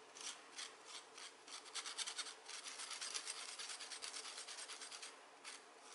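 A metal spoon scraping ground buckwheat around a fine stainless-steel mesh sieve to sift it into flour. It makes a faint, rhythmic rasping, about three strokes a second.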